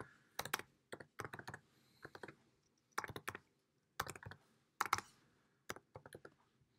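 Computer keyboard typing in short bursts of quick keystrokes, about once a second, with brief pauses between the bursts.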